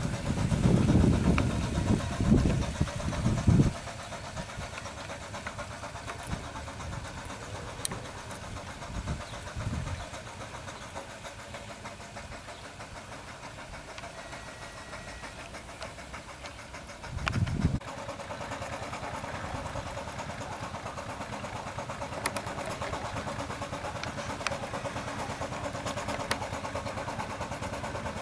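5/8-scale Wood Brothers steam traction engine running steadily as it drives, its sound growing louder and fuller about two-thirds of the way through. Loud, irregular low rumbles cover it for the first few seconds and briefly again around the same point.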